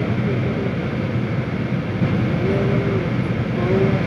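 Steady rumble of a vehicle driving, heard from inside its cabin.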